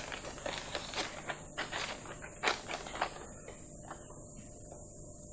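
Footsteps: a run of light taps, about three a second, that stops about three seconds in, leaving faint hiss.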